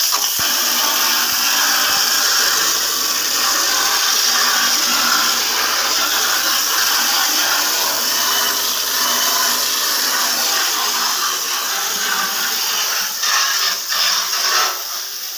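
Pressure-washer jet spraying water onto an air-conditioner condenser coil: a steady, loud hiss, broken by a few short stops near the end.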